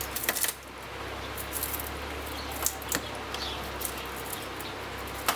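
Small scattered clicks and metal scrapes of a flat-head screwdriver prying into and cutting through the copper windings of a ceiling fan motor, over a steady low hum.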